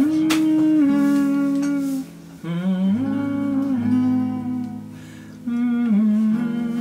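A voice humming a slow melody without words in long held notes, over a plucked acoustic guitar.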